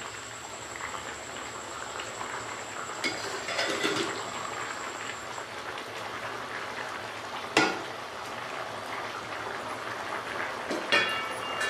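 Biryani rice and chicken boiling in an aluminium pot, a steady bubbling, while a slotted metal spoon stirs through it with scraping strokes. A single sharp knock of metal about two-thirds of the way in, and a faint high whine in the first half.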